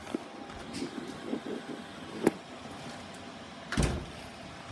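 Kitchen handling knocks: a few light taps, a sharp click about halfway through, then a heavier thump near the end.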